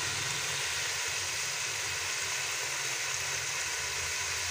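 Meat sizzling as it fries in ghee and masala in a pot: a steady, even hiss with a low hum underneath.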